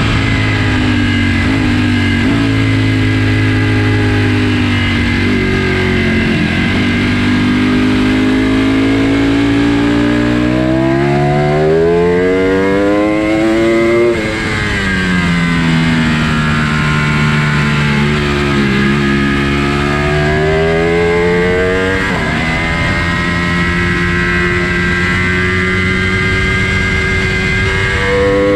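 Ducati sport bike engine heard from on board at track speed. Its note climbs steadily under throttle for several seconds, then drops sharply about halfway through as the throttle closes for a corner, with brief dips at gear changes. Wind rushes steadily underneath.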